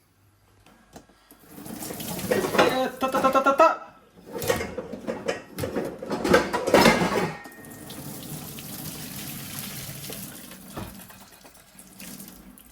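Water running and splashing into a kitchen sink, with a metal pot knocking a few times while the water is loudest; the flow then settles into a steadier, quieter rush that fades out near the end.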